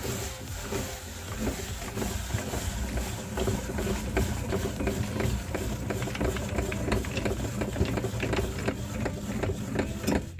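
Electric meat grinder motor running steadily while salty biscuits crackle and crunch through it in rapid, uneven clicks; the sound cuts off abruptly at the end.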